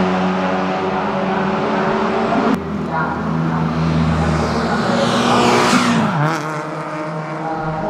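Car engine running at steady high revs, with a sudden break about two and a half seconds in; near the end the engine note drops in pitch.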